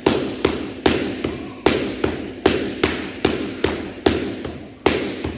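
Boxing-gloved one-two punches landing on a partner's hand-held target in quick succession, about fourteen sharp slaps at roughly two and a half a second, each with a short echo.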